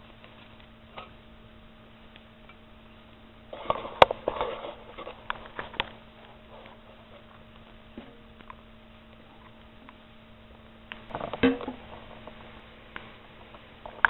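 Split sticks of wood knocking and clattering as they are handled and fed into a rocket stove. There are two bursts of knocks and scrapes, one about four seconds in and one about eleven seconds in, over a faint steady hum.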